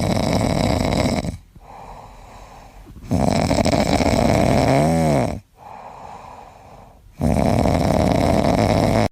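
A pet snoring loudly in a slow rhythm: three long, rasping breaths with quieter breaths between them. The middle breath ends in a short squeaky whistle.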